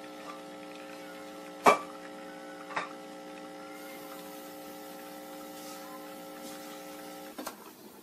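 Espresso machine pump humming steadily while a shot pours, then cutting off abruptly with a few clicks near the end. Two sharp clicks about a second apart come around two seconds in, the first the loudest sound of all.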